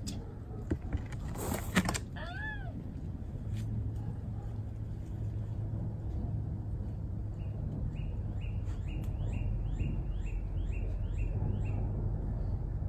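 A dog gives a brief, high arched whine about two and a half seconds in, just after a short noisy burst. Later comes a run of short rising chirps, about two or three a second, over a steady low hum.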